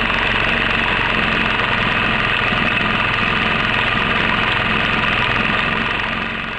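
Small engine of an antique Sten drag saw running steadily, working the saw blade back and forth across a log. The sound fades out near the end.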